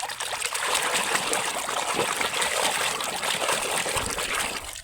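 Running water pouring and splashing over a muddy toy truck as the mud is washed off. The flow cuts off abruptly at the very end.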